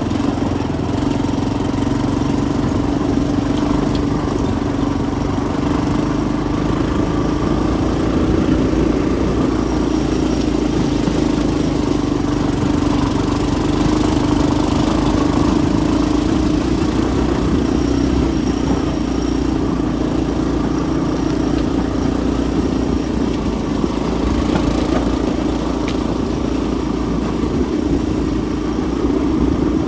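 An engine running steadily at an even speed, a constant low hum with no change in pitch.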